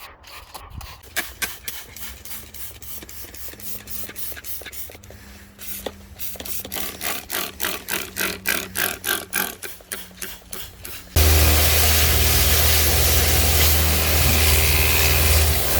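Trigger spray bottle squirting degreaser in quick, repeated pumps, about three a second. About eleven seconds in, a pressure washer cuts in suddenly, loud and steady, with a low hum under the hiss of the spray.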